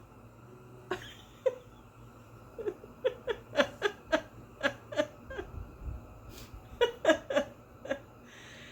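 A person laughing at herself: short breathy pulses of laughter, a few a second, in two runs, the second starting about seven seconds in.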